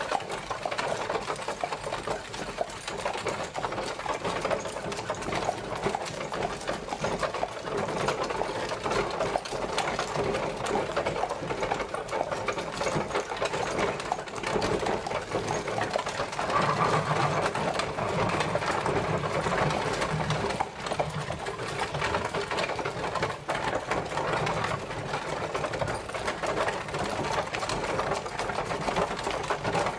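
Horse-drawn carriage travelling: a continuous dense rattle and clatter of the carriage rolling along.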